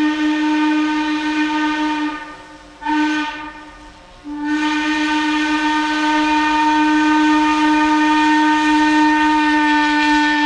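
Steam locomotive whistle blowing a single steady note: a long blast, a short toot about three seconds in, then another long blast that holds to the end.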